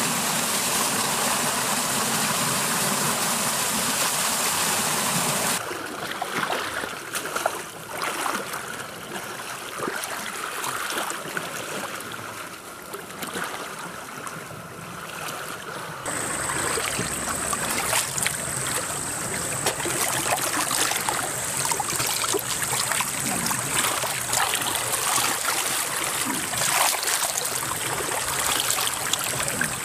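Muddy creek water running and splashing as soldiers in ghillie suits crawl through it, with scattered sharper splashes; the sound changes abruptly twice, about six seconds in and again about sixteen seconds in.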